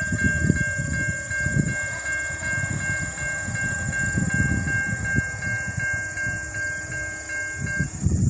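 Railroad crossing warning bell ringing rapidly, about four strikes a second, stopping shortly before the end. A low, uneven rumble runs underneath.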